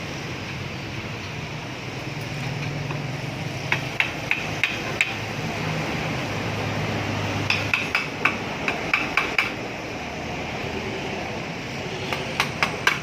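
Hammer tapping on metal parts of an electric water pump during a bearing and water-seal replacement: three short runs of sharp, ringing metallic taps, a few a second, over a steady low hum.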